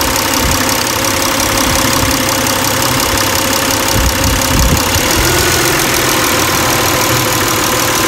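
Toyota Camry's 3.0 L 1MZ-FE V6 idling warm with its engine coolant temperature sensor unplugged, so the engine runs rich and the idle is slightly erratic, though not badly.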